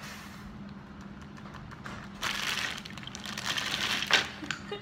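Plastic zip-top bag rustling and crinkling as it is handled, in two bursts about two and three seconds in, ending with a sharp crackle.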